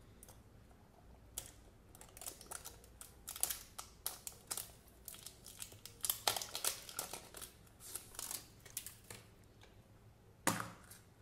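Plastic shrink-wrap film crinkling and crackling as it is peeled and torn off a hard plastic surprise-egg capsule, in a quick irregular run of crackles. About ten seconds in comes a single louder snap as the capsule's two halves pop apart.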